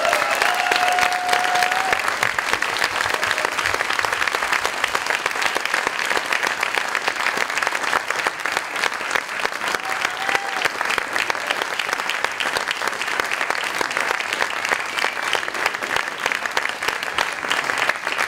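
Theatre audience applauding steadily after a live performance, with a couple of cheers at the start and one more about ten seconds in.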